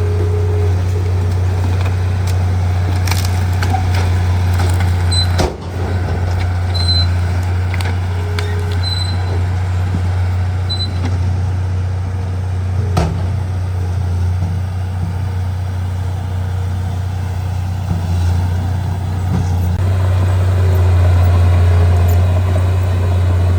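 Bulldozer's diesel engine running with a steady low drone, briefly dropping in level about five and a half seconds in.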